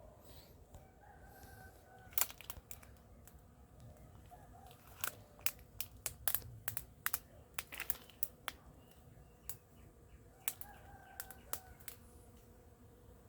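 A rooster crowing twice, once about a second in and again near the end. In between comes a run of sharp, irregular clicks and cracks, louder than the crowing.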